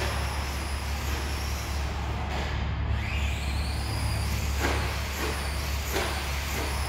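Arrma Senton Mega 4x4's brushed electric motor whining, its pitch rising as the RC truck accelerates about three seconds in. A few short clatters come from the truck on the dirt track near the end, over a steady low hum.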